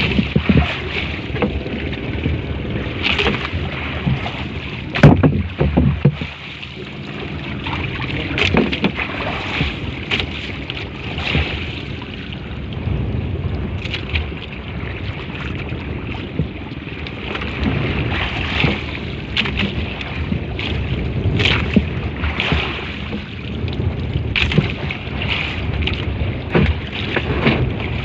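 Small boat out on the open sea: a steady rumble with water and wind noise, and scattered knocks throughout.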